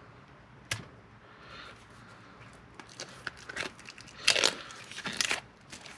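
Plastic shrink-wrap being peeled and torn off a small deck of cards, crinkling and crackling in irregular bursts from about three seconds in. The loudest bursts come about four and a half and five seconds in. There is a single sharp click under a second in.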